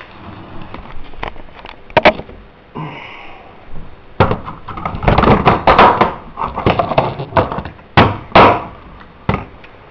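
A tin can being struck hard again and again to force it open: a few scattered knocks, then from about four seconds in a rapid flurry of hard bangs, and a couple of loud separate bangs near the end.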